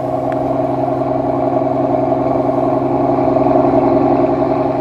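Mercedes-Maybach S680's 6.0-litre twin-turbo V12 idling steadily.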